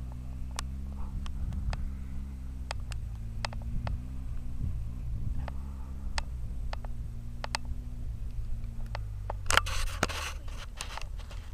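A steady low hum like a nearby engine running, with scattered sharp clicks and a burst of rustling, scraping noise close to the microphone about two seconds before the end.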